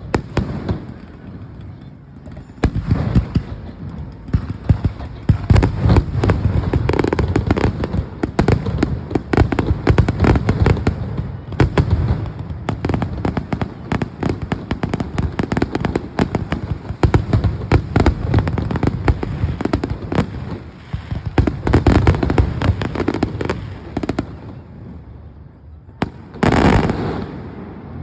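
Fireworks finale: a rapid, dense barrage of overlapping bangs and crackles that builds a few seconds in, thins out near the end, then one last loud burst.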